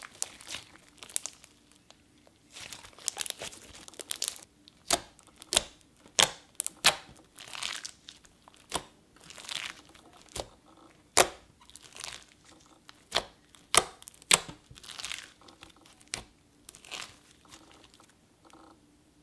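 Cream cheese slime with white foam beads mixed in, squeezed, stretched and poked by hand: irregular crackling and popping, some pops sharp and some longer and smeared, with soft squishing between them.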